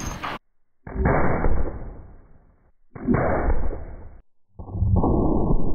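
Three .50 BMG rifle shots at a sheet-metal ATM, heard as deep, muffled booms. Each has a long rumbling fade and cuts off abruptly, and the third is the dullest.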